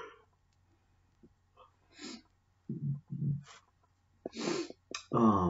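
A man's breathing and short wordless vocal noises: a few breathy exhalations and two brief low hums, then a longer voiced 'uhh' that falls in pitch near the end.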